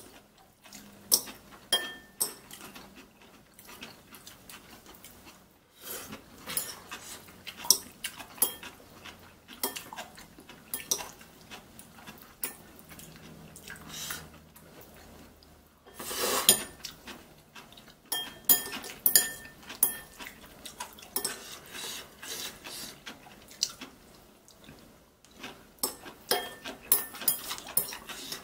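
Stainless steel chopsticks clinking and scraping against ceramic bowls while mixing and lifting sauced noodles, in irregular, frequent clicks and knocks.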